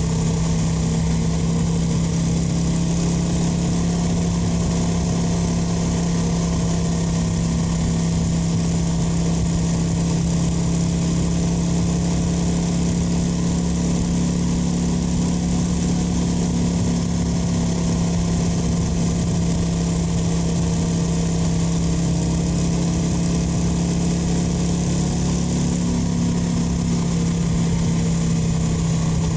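Kawasaki VN 900's V-twin engine and exhaust running steadily at a nearly constant pitch, with no revving or gear changes.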